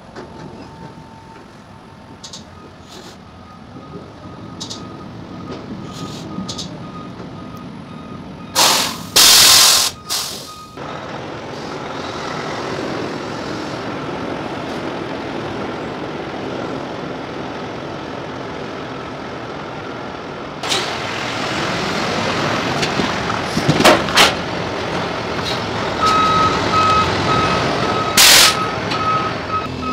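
Semi truck maneuvering in a trailer yard: its diesel engine runs and grows louder, and its air brakes release in loud hissing bursts about nine seconds in, with shorter hisses later. A reversing alarm beeps steadily near the end.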